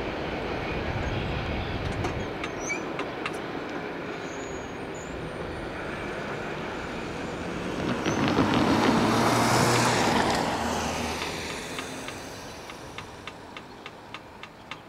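Steady rumble of a departing freight train, then a car drives over the grade crossing, passing loudly about eight seconds in and fading away. Near the end, light ticks come about twice a second.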